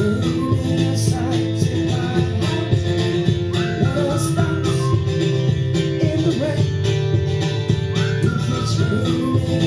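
Live band music: an instrumental passage of a pop-rock song with guitar, and a short gliding lead phrase that repeats about every four seconds.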